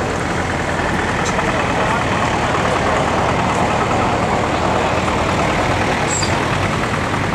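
Unimog truck's diesel engine running steadily as the truck crawls down a steep dirt slope, with people talking in the background.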